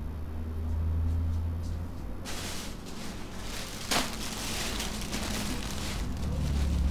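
A plastic shopping bag full of clothes rustling as it is set on a table and handled, with one sharp tap about four seconds in. A steady low hum runs underneath.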